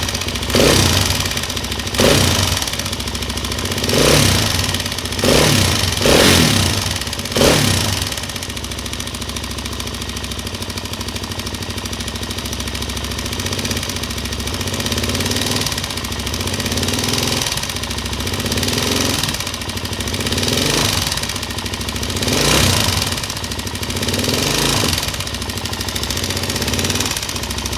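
Suzuki LTZ400 quad's single-cylinder four-stroke engine running, blipped about six times in quick succession during the first eight seconds, then running steadily with small rises and falls in speed. The owner hears a ticking from the cylinder head.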